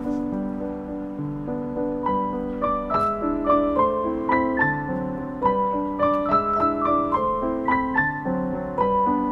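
Background piano music: a melody of single notes struck a couple of times a second over lower accompanying notes.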